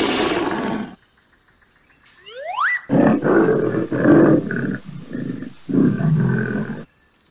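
Tiger roaring and growling in a run of rough, loud bursts with short gaps. Just before it comes a short rising whistle-like sound effect, and the tail of an earlier music sting cuts off about a second in.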